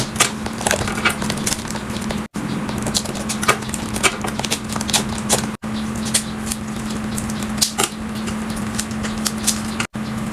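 Food containers and packaging being handled and set into a fridge: a run of light clicks, taps and knocks of plastic and glass over a steady low hum, broken off briefly three times.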